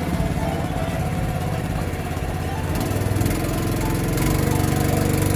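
Small boat engine running steadily, its pitch shifting slightly about three seconds in.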